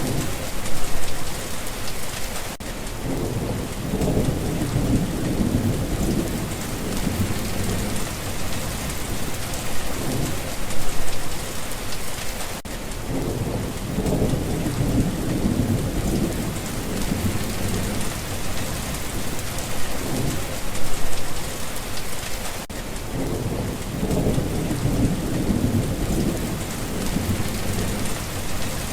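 Steady heavy rain falling on a surface, with three long, low rumbles of thunder rolling through about ten seconds apart. The sound briefly drops out just before each rumble, so the recording seems to repeat on a short loop.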